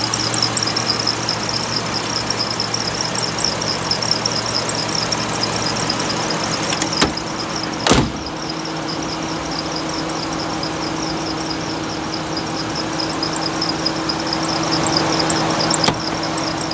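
Toyota Crown (Zero Crown) engine running at idle with a rhythmic high chirping squeal from the engine-room belt drive, repeating several times a second: the abnormal 'kyuru kyuru, kari kari' noise, pointing at the V-belt or a pulley such as the water pump, alternator or idler. A sharp knock about eight seconds in.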